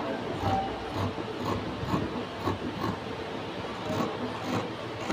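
Green-handled tailoring scissors cutting through folded checked cloth: a run of soft snips and blade rasps, about two or three a second.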